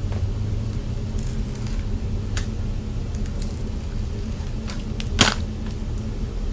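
Scattered light clicks and crackles of a flat iron clamping and sliding through hair, with one sharper click about five seconds in, over a steady low hum.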